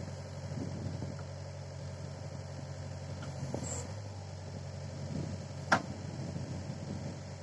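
Hitachi mini excavator's diesel engine running steadily while the arm and bucket are worked, its note shifting slightly about halfway through. A single sharp click sounds shortly before the end.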